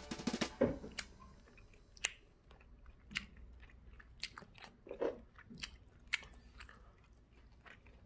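A person chewing grilled freshwater eel, with wet lip-smacking and scattered short mouth clicks.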